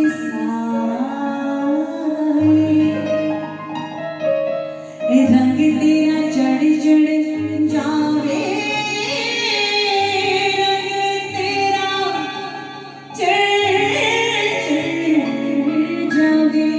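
A woman singing a slow Hindi song melody over instrumental accompaniment, with long held notes and a bass line that changes every second or two.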